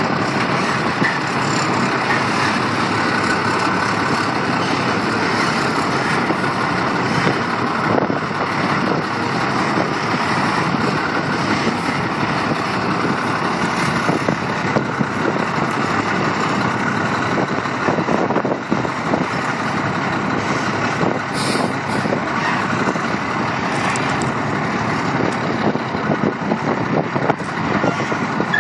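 Semi tractor's diesel engine running steadily at low speed while the tractor-trailer reverses slowly, with a short high hiss about three-quarters of the way through.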